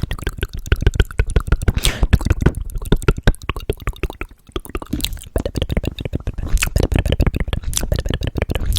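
Close-miked ASMR triggers: a dense, rapid run of wet clicks and taps, many a second, without pause.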